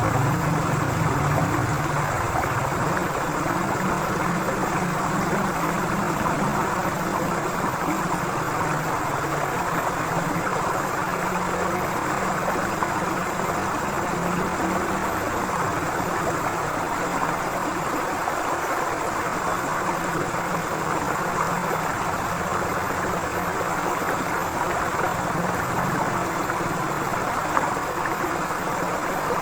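Forest river flowing with a steady rushing of water. A low hum, like a distant engine, is loudest at the start and fades over the first few seconds.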